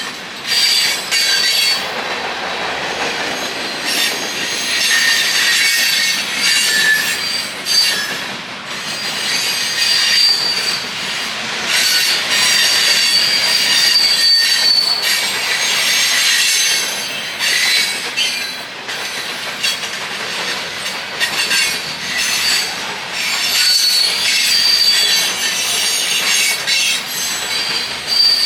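Freight train rolling past with its wheels squealing: high, wavering squeals that come and go over the rumble of the cars, with many short clicks and knocks from the wheels on the rail joints.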